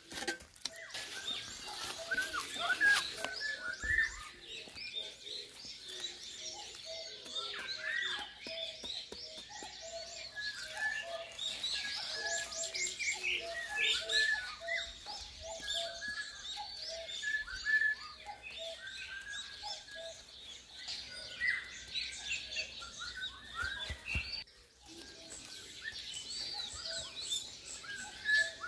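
Many small birds chirping and singing, with quick overlapping notes running on throughout, and a couple of soft thuds from a hand hoe working the soil.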